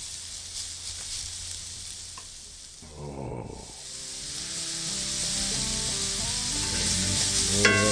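Chopped ribeye steak and crushed black peppercorns sizzling as they fry in oil and butter in a hot cast iron pan, the sizzle growing louder over the second half. Steady background music comes in about three seconds in.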